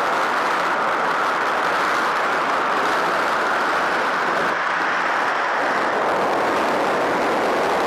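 Steady rush of airflow and engine noise inside a Cessna 150's cabin with the side window open.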